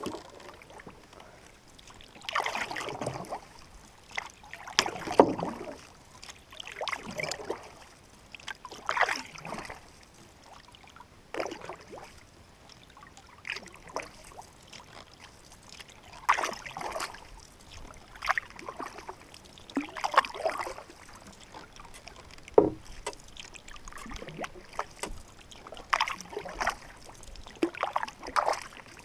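Canoe paddle strokes in calm lake water: a splash and drip of the blade roughly every two seconds, with one sharper knock about two-thirds of the way through.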